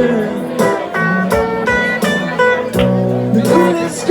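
Acoustic guitar strummed in rhythm with a voice singing over it: live acoustic song.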